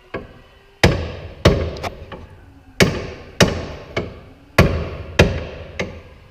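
Hammer blows on the car's front suspension, driving a roll centre adjuster into its seat. About a second in, nine sharp strikes come in three sets of three, roughly 0.6 s apart. The third strike of each set is lighter, and each blow rings briefly.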